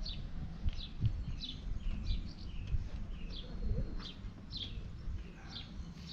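Small birds chirping: short, high, downward-sliding chirps repeated about twice a second, over a low rumble.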